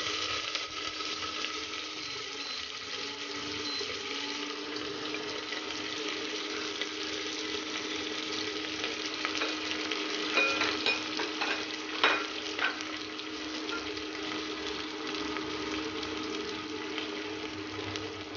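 Chopped onions sizzling steadily in hot oil in a pan at the start of sautéing, with a few sharp clinks of utensil on pan about ten to thirteen seconds in.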